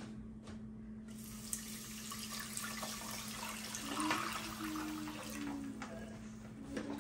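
Water poured from a glass pitcher into a caramel-coated frying pan, a splashing pour that swells to its loudest about four seconds in and tails off near the end.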